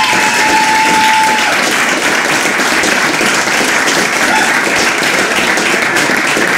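Audience applauding steadily in a small club, with a high steady tone held for about the first second and a half.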